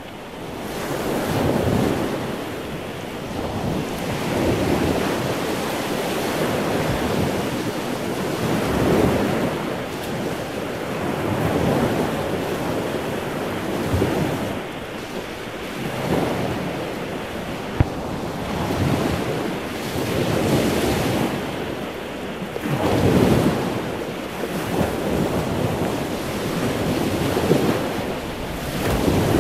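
Sea waves washing onto a beach, the surf swelling and ebbing every couple of seconds, with wind buffeting the microphone. A single sharp click sounds once partway through.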